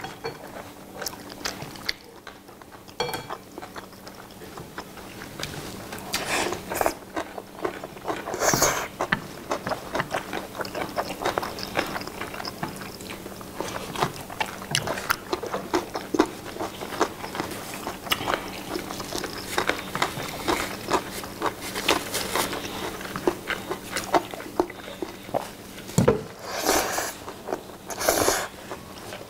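Close-up eating sounds of two people finishing black-bean sauce noodles: chewing, with steel chopsticks clicking and scraping in ceramic bowls. A couple of louder rushing bursts come near the end.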